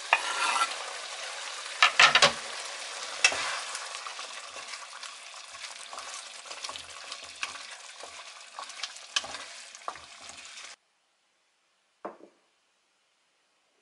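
Sardines in tomato sauce sizzling in a frying pan as they are stirred with a wooden spatula, with scattered knocks of the spatula against the pan, loudest about two seconds in. The sizzle stops suddenly about three-quarters of the way through, leaving near silence broken by a single soft knock near the end.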